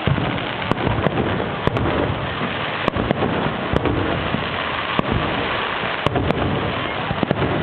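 Fireworks display: a dense, continuous crackle and rumble, with sharp bangs about once a second.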